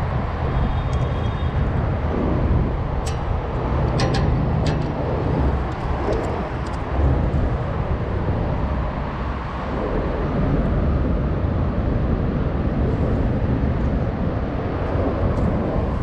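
Steady low rumble of road traffic on the overhead highway bridges, with a few sharp clicks about three to five seconds in.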